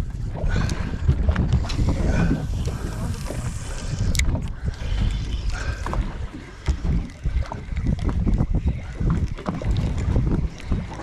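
Wind buffeting the microphone aboard a small fishing boat at sea: a steady low rumble with scattered short knocks and clicks.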